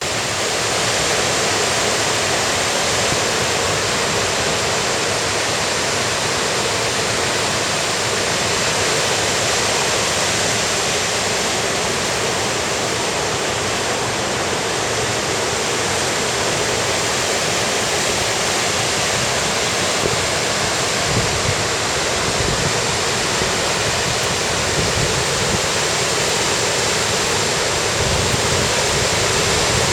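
River swollen in flood after heavy typhoon rain, its water rushing steadily, with some low rumbling in the second half.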